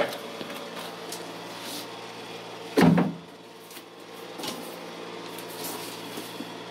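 Mats being lifted by hand off the top of a sailboat's keel box: a brief knock at the start, a loud thump about three seconds in, and a lighter knock a second and a half later.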